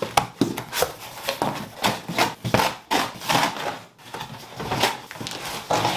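Large cardboard box being opened by hand: the packing tape is cut along the edge and the flaps are pulled open, making a quick, irregular series of scraping, tearing and crinkling cardboard noises.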